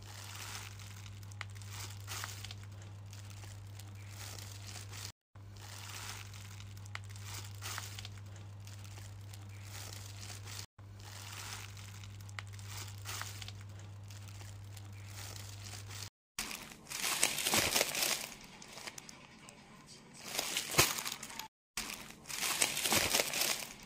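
Plastic wrapping on a pack of paper air fryer liners crinkling under a hand: soft crinkles over a steady low hum at first, then louder, irregular crinkling in the last third. The sound drops out briefly a few times.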